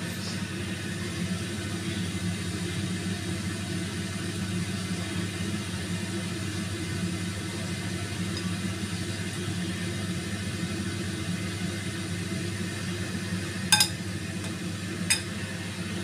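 A steady low mechanical hum runs throughout. Near the end, a metal spoon clinks twice against a ceramic plate, about a second apart.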